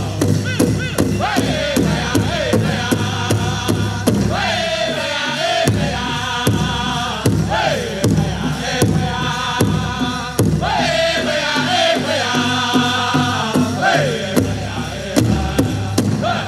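Powwow drum group singing a grass-dance contest song: several voices chant phrases that fall in pitch over a steady, evenly spaced beat on a big drum.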